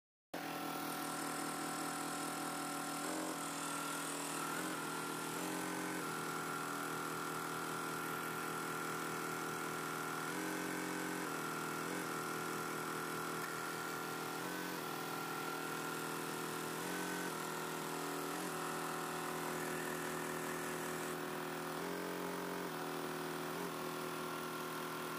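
Multi-head computerized embroidery machine stitching: a steady machine hum with several whining tones that shift in pitch every few seconds.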